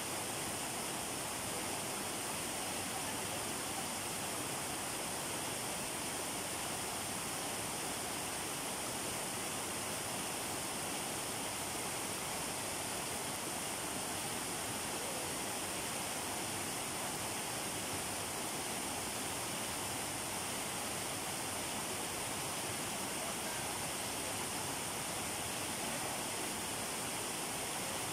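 A small cascading waterfall and the stream below it rushing over rocks and logs: a steady, unchanging wash of white-water noise.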